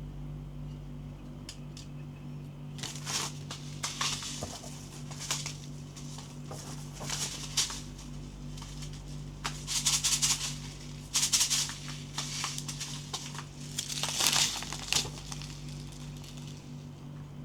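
Plastic packaging crinkling and rustling in a series of short bursts as a toy gel blaster is unboxed, over a steady low hum.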